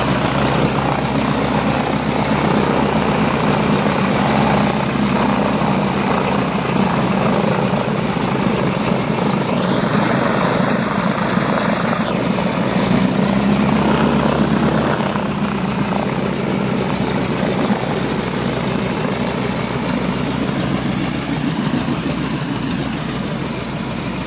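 North American T-6 Texan's nine-cylinder Pratt & Whitney R-1340 Wasp radial engine running steadily, its propeller turning, a loud even drone that eases slightly toward the end.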